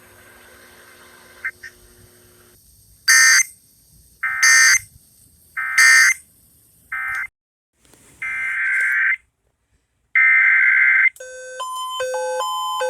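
Emergency Alert System digital data bursts: a harsh buzzy screech, three times about a second apart, the usual end-of-message code that closes an alert. More bursts of the same screech follow, and near the end a run of electronic beeping tones steps between pitches.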